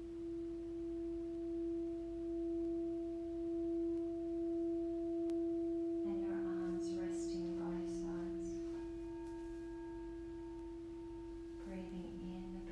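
Singing bowl ringing with a sustained low hum that swells and pulses slowly. About nine seconds in, higher ringing tones join it.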